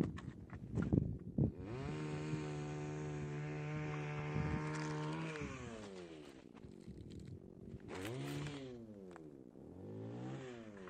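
Chainsaw engine revving up, held at a steady high speed for about three seconds, then dropping back, followed by two shorter revs. A few knocks and scuffs come before it.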